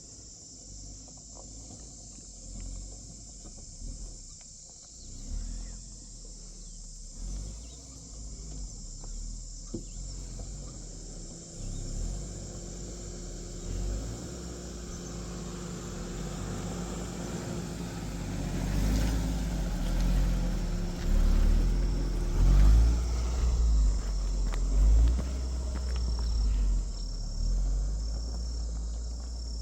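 Suzuki Jimny's engine running slowly as it crawls over a rocky track, its hum building about a third of the way in, with heavy low thuds from the wheels and body going over rocks in the middle part. A steady high insect drone carries on throughout.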